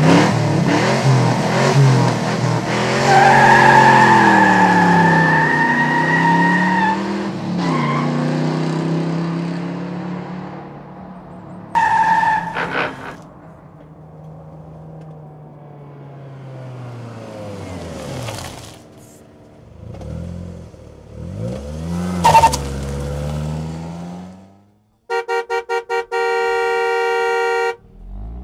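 Car driving sound effects: the engine revving up and down, tyres squealing several times, then the car horn honking in a few short beeps and one long blast near the end.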